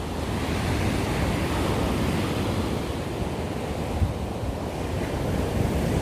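Surf washing steadily onto a sandy beach, with wind buffeting the microphone.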